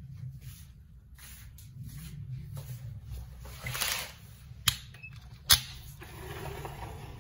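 A sliding window being pushed open by hand: a brushing swish, two sharp clicks almost a second apart, then a scraping as the frame slides along its track.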